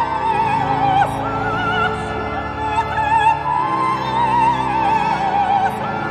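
Operatic music: a high voice sings with wide vibrato over an orchestral accompaniment.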